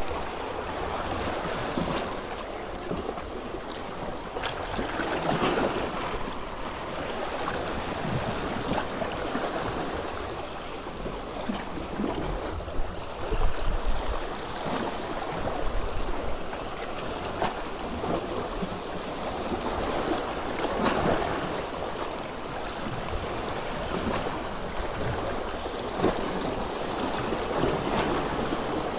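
Sea waves washing against a rocky shore, a steady rush that swells and surges every several seconds.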